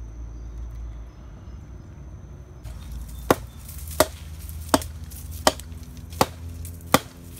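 Hatchet chopping into a fallen log: six sharp strikes at an even pace, a little under a second apart, beginning about three seconds in.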